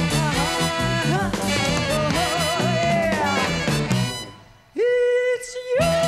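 Big band with saxophones and brass backing a woman singing a swing ballad. About four seconds in the band stops, she holds a note alone, and near the end the band comes back in under a long held note.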